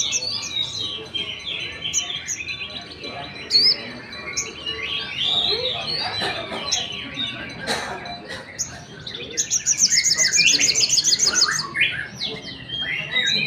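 Sogon songbird and other birds singing over one another: a dense mix of high chirps and whistled phrases, with a long, fast rattling trill about ten seconds in. A single sharp click sounds just before eight seconds.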